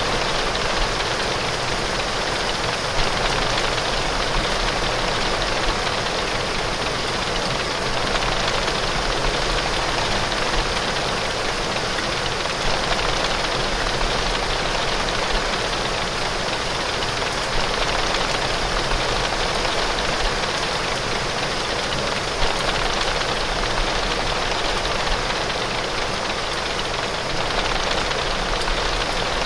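Heavy rain falling on window glass: a steady, unbroken hiss with a low rumble underneath and a few faint ticks of drops.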